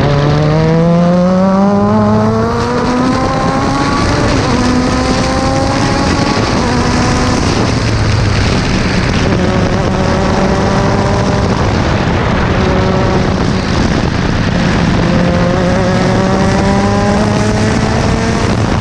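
Onboard sound of an F3 open-wheel race car's engine at speed, with heavy wind rush. The engine's pitch climbs hard in the first few seconds under acceleration and holds steadier through the middle. It climbs again over the last few seconds.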